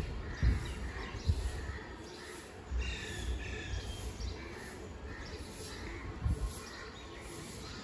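Birds chirping outdoors in short scattered calls, a group near the start and another about three seconds in, over a low steady background of outdoor noise.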